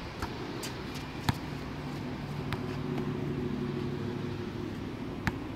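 A few sharp knocks of a basketball hitting the hoop and bouncing on the outdoor court, the loudest about a second in. Under them runs a steady low engine hum that swells and then fades, like a passing motor vehicle.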